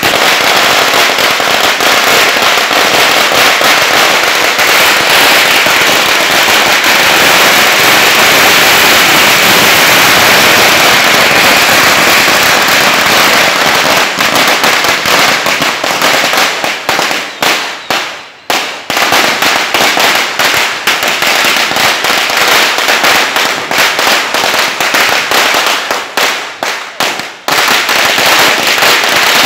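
A long string of firecrackers laid out on the road going off in a fast, continuous run of loud bangs. It falters briefly twice, about eighteen and twenty-seven seconds in.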